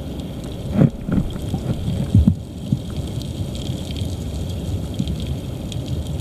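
River current heard underwater through a submerged camera: a steady, low rushing rumble, with a few muffled knocks about a second in and again just after two seconds.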